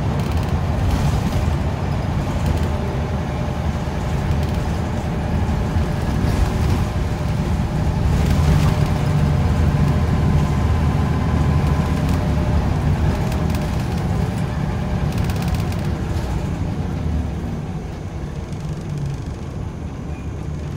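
Inside a moving Scania L94UB single-deck bus: its rear-mounted diesel engine drones steadily under the tyre and road noise, with brief rattles from the cabin now and then. Near the end the engine note drops as the bus slows.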